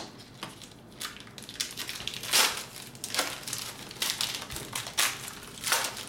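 Foil trading-card booster-pack wrappers being opened and crumpled by hand: a string of irregular crinkling rustles, loudest about two and a half seconds in and again near the end.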